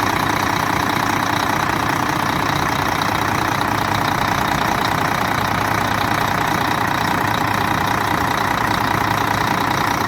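Volvo FH13 six-cylinder diesel truck engine idling steadily, with a fast even clatter from the valve gear. The rocker arms have just been reseated on the valves, and the knock from the valve-cover area is no longer there.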